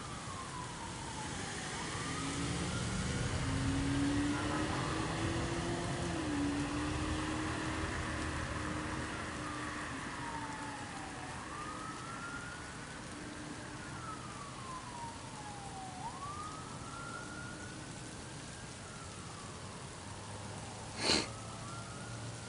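A distant siren wails in slow falls and rises, one cycle about every five seconds, over the steady hiss of rain. A vehicle passes in the first half, with a low steady hum, and there is one sharp click near the end.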